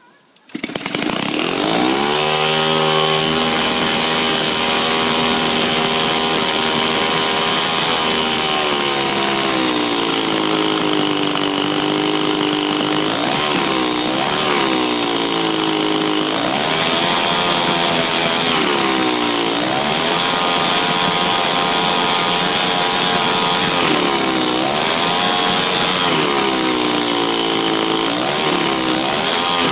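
The 52cc two-stroke petrol engine of an 87-inch Extra 260 model aircraft catches about half a second in and runs with its propeller spinning. It settles to a lower idle, then is revved up and back down several times in short blips.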